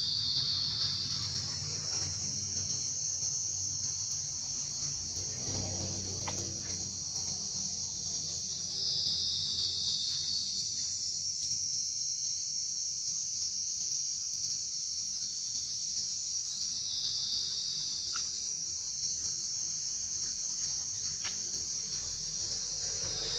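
A steady, high-pitched drone of forest insects, swelling louder twice, about nine and seventeen seconds in.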